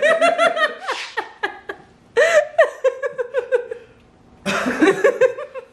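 A woman laughing hard in three high-pitched bouts of quick "ha-ha" bursts. One bout runs through the first second, the next starts about two seconds in, and a shorter one comes near the end.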